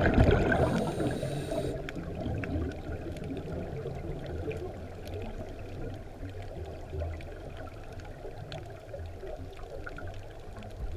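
Underwater ambience picked up by a GoPro in its housing: a muffled wash of moving water, louder in the first second and then settling to a low, steady rush with faint scattered clicks.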